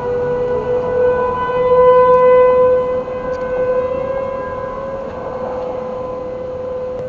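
Several outdoor warning sirens, ASC T-128s and Federal Signal Thunderbolt 1000ATs among them, sounding together in a steady Alert tone, the continuous signal of a siren test. The overlapping tones drift slightly upward in pitch over the first couple of seconds and swell loudest about two seconds in.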